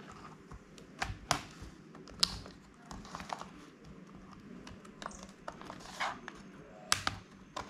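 Irregular clicks and snaps as a replacement Lenovo ThinkPad T480 keyboard is pressed down into the laptop's frame with fingertips and a screwdriver tip, seating it firmly; about eight separate clicks, spaced unevenly.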